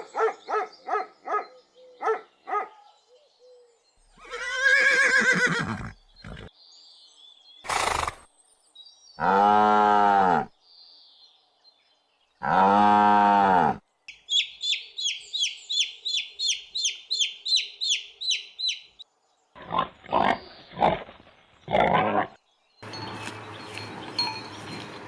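A run of different farm animal calls, one after another with short gaps: a quick series of short calls at the start, a long call a few seconds in, two strong drawn-out calls near the middle, a fast run of high repeated chirps, then more short calls.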